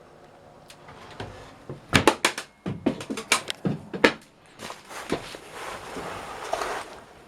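A quick run of sharp knocks and clatter, like a door or hatch being handled, followed by a few seconds of rustling, scraping noise.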